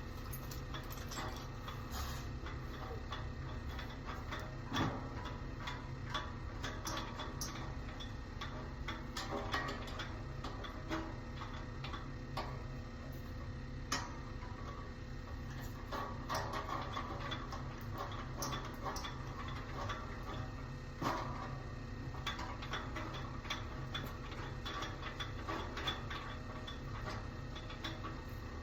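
Irregular clicks and metallic clatter of shelf parts being handled and fitted while a snack display rack is assembled, over a steady low hum.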